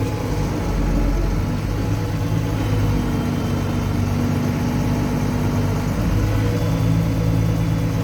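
Farm tractor engine running while backing a hitched hay baler; its steady hum changes about a second in and firms up again around six seconds in.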